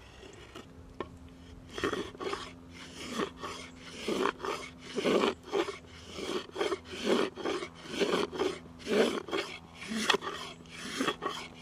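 Hand saw cutting through wood in regular push-pull strokes, about two a second, starting about two seconds in.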